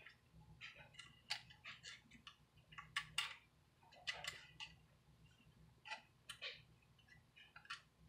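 Faint, irregular clicks and taps of a thin metal hard-drive bracket being handled and fitted onto the side of a 2.5-inch laptop hard drive, with a few sharper clicks about three and four seconds in.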